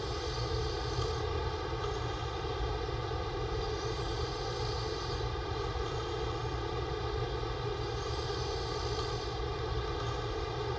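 A steady machine-like drone, with a sleeping man's breathing swelling faintly about every four seconds.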